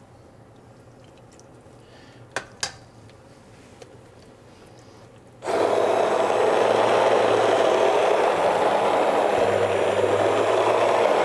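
Two light clinks, then about five seconds in an immersion hand blender starts abruptly and runs steadily, churning a pot of thick cooked wheat thinned with meat broth.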